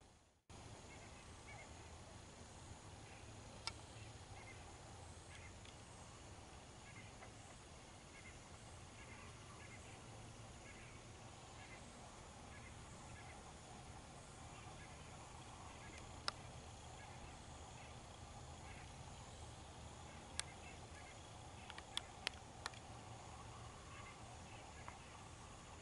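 Near silence: faint outdoor ambience with faint, evenly repeated short chirps through the first half and a few faint sharp clicks, several of them close together near the end.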